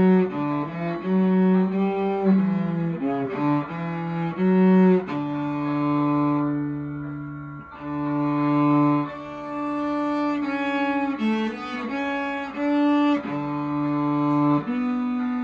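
Solo cello bowed, playing a melody: a run of short notes for the first five seconds or so, then longer held notes.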